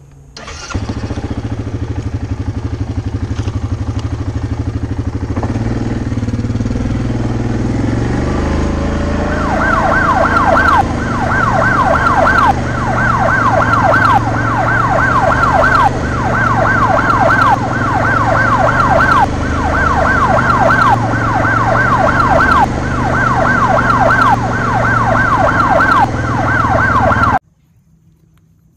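An ATV engine running steadily while the machine is ridden. From about a third of the way in, a siren yelps over it in quick rising sweeps that repeat in cycles of under two seconds. Both cut off suddenly near the end.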